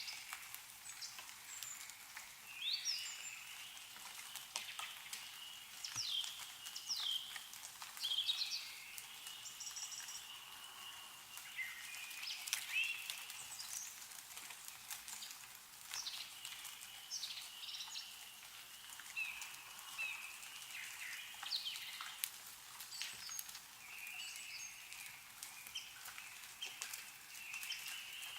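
Small songbirds chirping and twittering busily, with many short calls overlapping, over faint scattered ticks of meltwater dripping from snowy trees.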